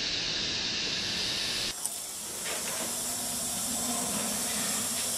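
Steady hiss of background noise that changes in tone a little under two seconds in, just before a brief click, with a faint low hum in the second half.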